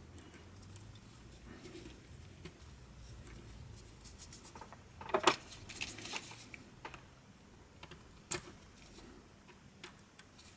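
Small clicks and rattles of plastic headphone-headband parts and hand tools being handled on a silicone work mat. A cluster of sharper clicks comes about four to six seconds in, and a single click about eight seconds in.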